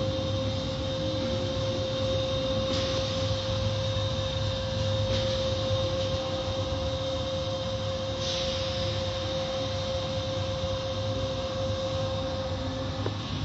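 Automatic tunnel car wash machinery running: a steady motor hum and constant whine under the hiss of water spray and spinning cloth brushes, with three brief swells of spray hiss.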